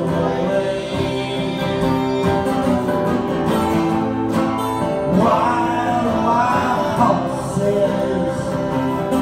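Live acoustic band music: three acoustic guitars strumming and picking, with a singing voice.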